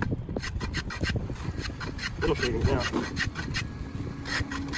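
Hand filister (rabbet) plane shaving a pine strip glued into a wooden window sash in a run of short, quick scraping strokes, with a brief pause about two seconds in. It is being pushed against the grain, which tears the surface and leaves chatter marks.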